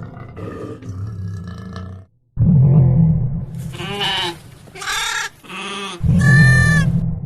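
Goat bleating three times in short, separate calls. Before the bleats, a low animal sound left over from the previous clip fades out over the first two seconds.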